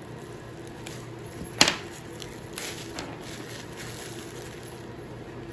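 Packaging being opened by hand to unwrap a shipped orchid: soft rustling with one sharp crackle about a second and a half in, over a steady low hum.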